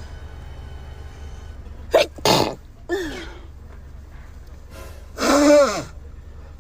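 A woman sneezing in a sneezing fit: a quick pair of sneezes about two seconds in, with a short voiced after-sound, then a longer, louder voiced sneeze about five seconds in.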